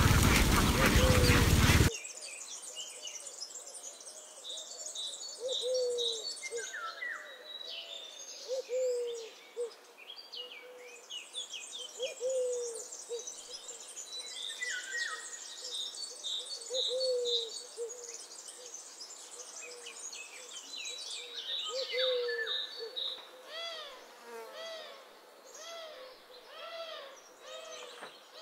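A large flock of domestic ducks quacking loudly, cut off about two seconds in. Birds calling follows: short, low, falling notes repeated over and over, with higher chirps and twitters above them.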